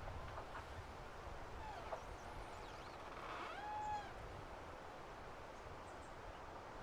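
Steady wind noise with two short, arching animal calls, one about two seconds in and a louder, longer one at about four seconds.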